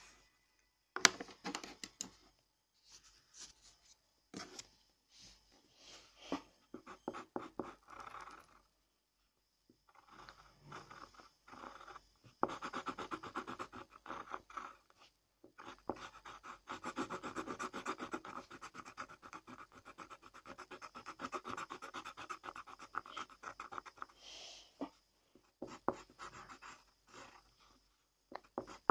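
Pencil scratching on paper in short strokes with pauses, then a longer unbroken stretch of drawing through the middle. A single sharp tap about a second in is the loudest sound.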